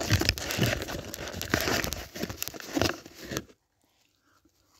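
A paper burger wrapper crinkling and tearing as it is handled and opened, cutting off abruptly about three and a half seconds in.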